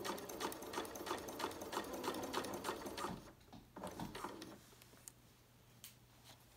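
Janome sewing machine stitching a long basting stitch, its needle clacking about five or six times a second, then stopping about three seconds in. A few light knocks follow as the fabric is handled.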